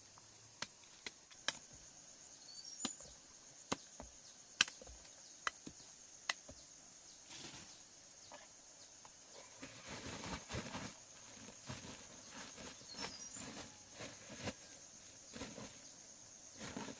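About ten sharp knocks or chopping strikes come in the first six seconds, then rustling and scraping of handled material. Insects drone steadily behind them.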